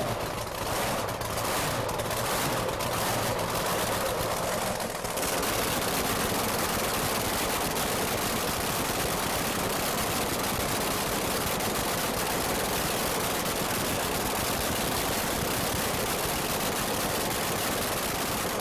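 Supercharged racing-boat engine running with open exhaust pipes, a loud rapid crackle of firing strokes. It is uneven for the first five seconds or so, then steadier and denser for the rest.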